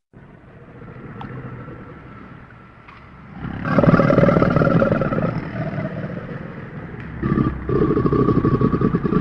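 Monster roar sound effect for a Purussaurus, a giant prehistoric caiman: a low, rattling growl that swells into a loud, deep roar about three and a half seconds in, breaks off briefly near seven seconds, then roars again.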